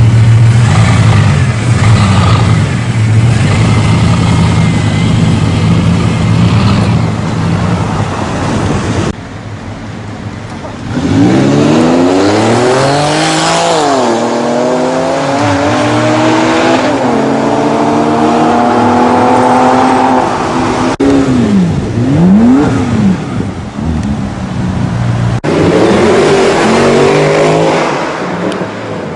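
Supercar engines revving and accelerating hard, the pitch climbing in steps through several gear changes in the middle stretch. The sound changes abruptly twice, as separate recordings follow one another.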